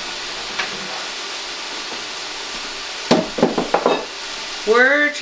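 Beef steak, onion and garlic sizzling steadily in hot grapeseed oil in an Instant Pot on its sauté setting. A few sharp knocks come about three seconds in.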